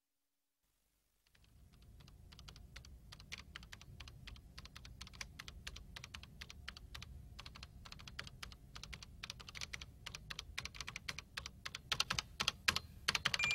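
Rapid typing on a computer keyboard, a dense stream of key clicks over a low steady rumble. It starts about a second in and grows louder and busier toward the end.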